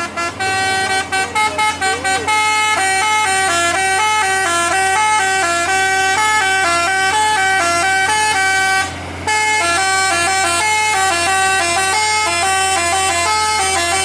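Musical 'telolet' air horn on a dump truck playing a melody, its notes stepping quickly up and down in pitch. A few short staccato toots in the first two seconds give way to a continuous tune, with a brief break about nine seconds in.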